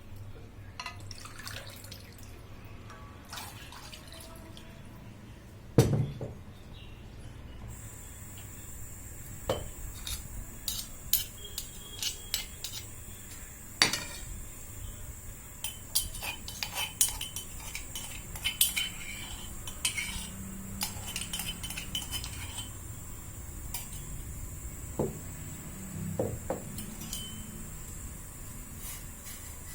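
Clinks and knocks of a cooking pot and metal utensils while the kadha is being made on the stove. A louder knock comes about six seconds in and another near fourteen seconds, with a run of light clinks in between and a faint steady high hiss from about eight seconds on.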